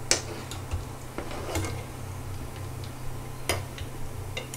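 Metal utensils clinking against a wire mesh skimmer and a wok as fried pastries are lifted out of oil: a few sharp clicks, the loudest right at the start, over a steady low hum.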